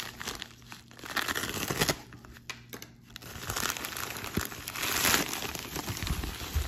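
A padded mailer envelope being handled and opened, its plastic crinkling and rustling unevenly. There is a quieter spell about two to three seconds in, and the busiest crinkling comes about five seconds in.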